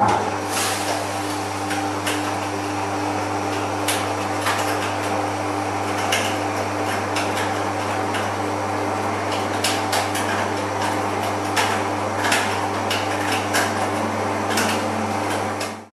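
MonsterMill malt mill driven by a 180 RPM electric motor, switched on and milling malt: a steady motor hum with scattered crackling, which comes from the hopper sitting too close to the rollers. It cuts off just before the end.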